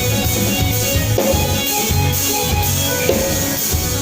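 Live band jamming: electric guitar over a steady, repeating bass line and drums with cymbals.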